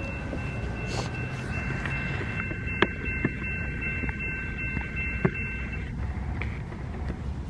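Railroad grade-crossing warning bell ringing as a steady high chime while the crossing lights flash, stopping about six seconds in, over a low rumble of wind and outdoor noise. A few light clicks come in the middle.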